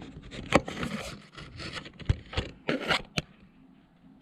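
Handling noise from reaching into a computer case: scraping and rubbing with a handful of short knocks and clicks, growing quieter near the end.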